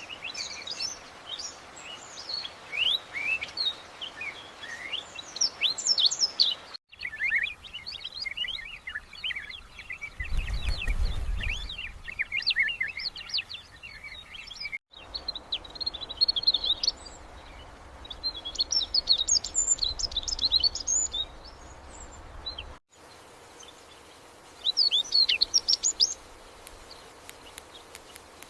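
Songbirds chirping and trilling in a dense run of quick high calls. The sound breaks off abruptly three times, and there is a brief low rumble near the middle.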